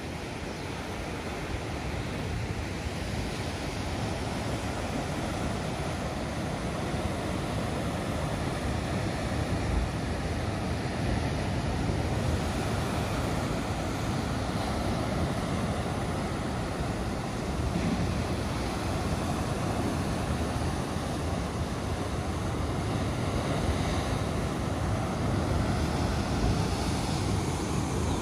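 Atlantic Ocean surf washing onto a sandy beach: a steady rush of breaking waves that swells and eases slowly, with wind on the microphone.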